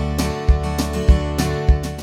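Background music with a steady beat, a thump a little under twice a second under held plucked-string notes.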